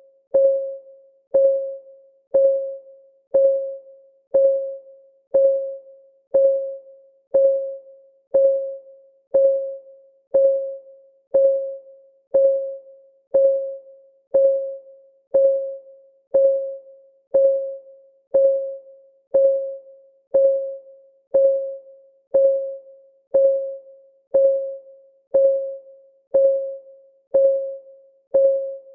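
Countdown timer's clock-ticking sound: a short pitched tick about once a second, each dying away quickly, evenly spaced throughout.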